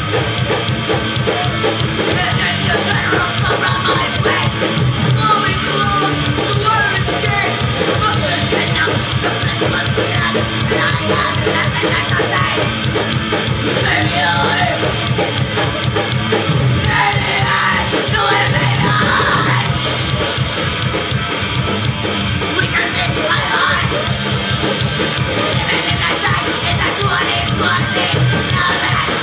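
A punk rock band playing live at full volume: rapid drumming under shouted vocals.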